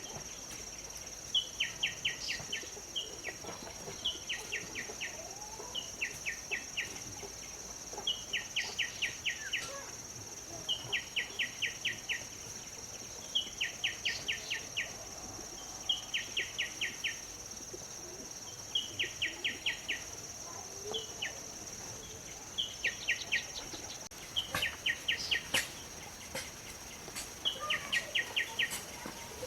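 Rural outdoor wildlife sound: short trills of rapid chirps, each about a second long, repeating every two to three seconds over a steady high-pitched buzz.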